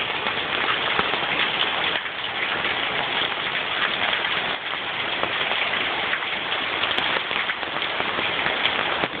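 Heavy rain pouring down steadily, a dense patter of drops hitting the ground and surfaces.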